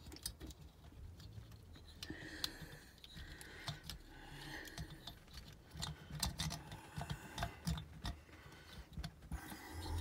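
Faint, scattered clicks and light metal knocks as the finned cylinder of a Sachs 502/1A 50cc two-stroke engine is worked down over the piston and studs onto the crankcase.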